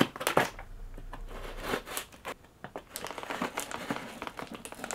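Scissors cutting open a cardboard shipping box: irregular snips with crackling and crinkling of the cardboard, and a brief lull about halfway through.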